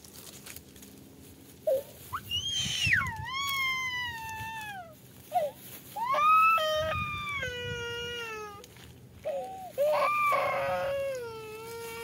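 Small child crying in long wails that fall in pitch, three long cries with short breaks between and a couple of brief sobs.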